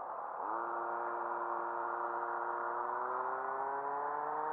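Radio-controlled car fitted with long gearing, heard from its onboard camera: a whine from its drivetrain that starts about half a second in, sweeps up and then keeps climbing slowly in pitch as the car pulls away and gathers speed, over a steady rushing noise.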